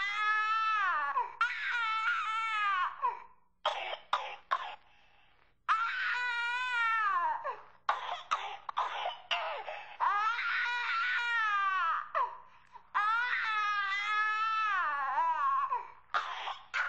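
An infant crying in repeated long wails that fall in pitch, broken by bouts of short, sharp coughs.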